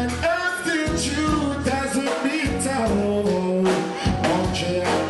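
Live reggae band playing through a festival PA, with bass, drums and keyboard under a male singer's voice.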